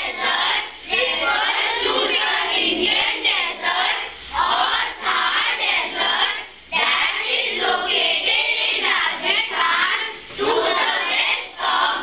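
A class of children singing together in unison, in phrases with short breaks between them.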